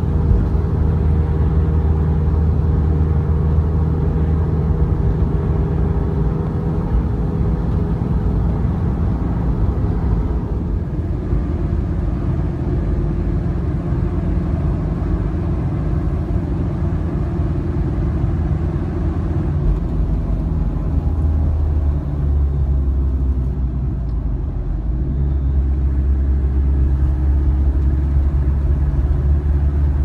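Car engine and road noise heard from inside the cabin while driving: a steady low rumble whose engine note shifts a couple of times as the speed changes.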